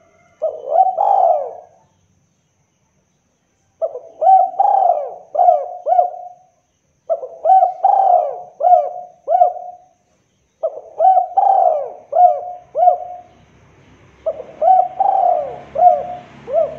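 Spotted dove cooing: one short coo, then four repeated phrases of several quick rising-and-falling coo notes, each phrase lasting two to three seconds with short pauses between.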